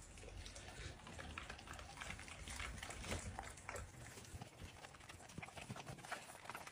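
A dog eating from a plate, with faint quick irregular clicks and smacks of its mouth as it chews and licks up the food.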